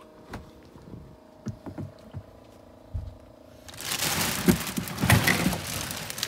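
A plastic bag of ice crackling and rustling as it is handled in an ice chest, starting a little past halfway and lasting about two and a half seconds. Before it come a few light knocks.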